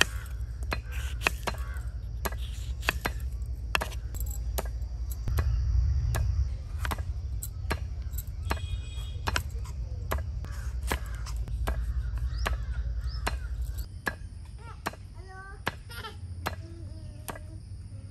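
Serrated knife slicing through tomatoes and knocking on a wooden cutting board, about two chops a second, over a low rumble. The chopping stops about 14 seconds in and birds chirp.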